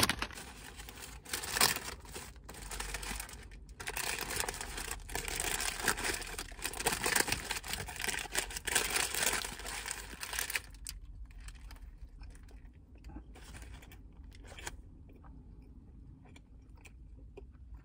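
Paper fast-food bag and the paper wrapper of a McDonald's Bacon & Egg McMuffin rustling and crinkling as the food is taken out and unwrapped. The crinkling is dense for about ten seconds, then thins to a few faint crinkles and stops about three seconds before the end.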